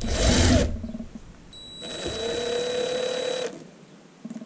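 A small electric power-tool motor runs for about two seconds with a steady whine that rises slightly as it comes up to speed, then stops abruptly, driving the T20 Torx bit on the fuel filter head's screws. A short, loud, noisy scrape comes right at the start, before the motor runs.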